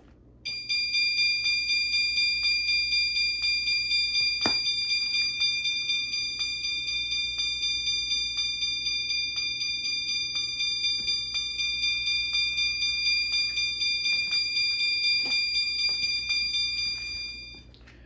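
System Sensor L-series electronic chime sounding continuously on its high setting: a bright ringing chime tone repeating about four times a second. It starts about half a second in and cuts off shortly before the end.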